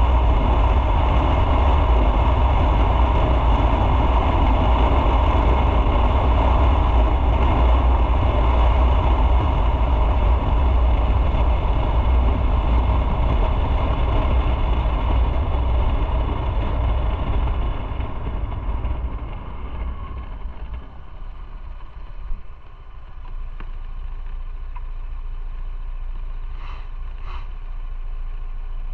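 Motorcycle ride: loud rushing wind and road noise with a low engine rumble, easing off as the bike slows about two-thirds of the way through. It then settles to a quieter steady engine idle, with two brief sharp ticks near the end.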